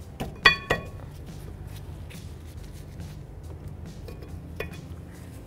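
Two sharp metallic clinks with a short ring, about half a second in and a quarter second apart, as steel-backed brake pads are pressed into the caliper bracket's clips, followed by a few light clicks of handling. Soft background music runs underneath.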